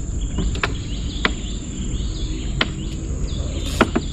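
Insects, crickets, droning at a steady high pitch, with a few sharp clicks scattered through and a low rumble underneath.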